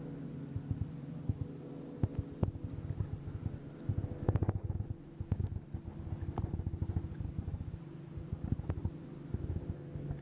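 A boat motor hums steadily, with dense irregular low knocks and a few sharp clicks, the loudest cluster about four and a half seconds in.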